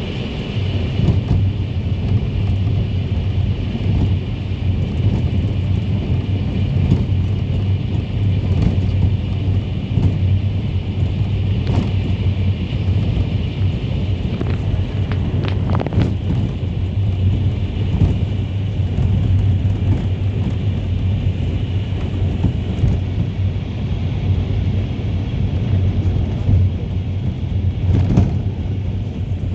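Minibus cabin noise while driving: a steady low engine drone and road rumble, with a few short knocks or rattles from the body.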